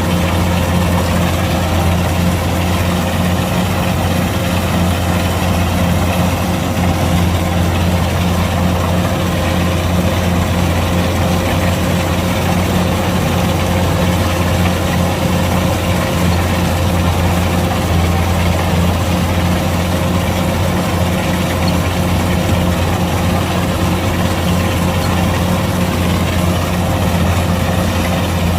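Kubota DC-105X combine harvester running steadily, its diesel engine giving a constant low note with a steady higher hum over it.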